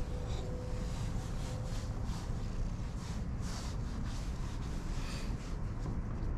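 Wind buffeting the microphone as a steady low rumble, with intermittent soft rustling as a hand strokes a cat's fur close to the microphone.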